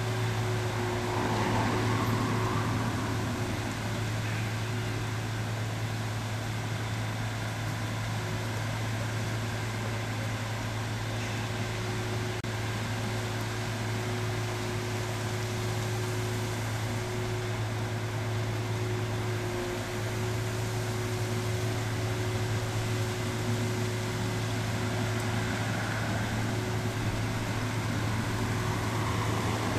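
Truck-mounted crane's engine and hydraulics running steadily while the grapple-saw boom works: a constant low hum with a faint steady whine above it.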